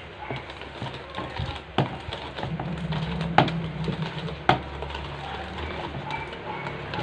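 Wire whisk beating thick ube muffin batter in a stainless steel bowl: a steady wet stirring with three sharp clinks of the whisk against the bowl, the loudest sounds.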